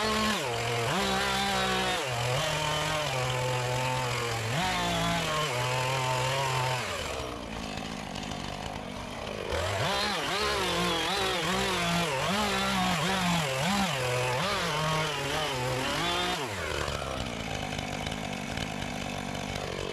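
Husqvarna two-stroke chainsaw cutting through brush, its pitch repeatedly dipping under load and rising again as it revs. It settles to a steadier tone near the end and then stops abruptly.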